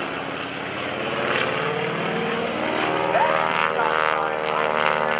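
Stock PT-17 Stearman biplane in aerobatic flight, its 220-horsepower Continental seven-cylinder radial engine and propeller running steadily. The sound swells from about a second in and stays loud for the rest of the pass.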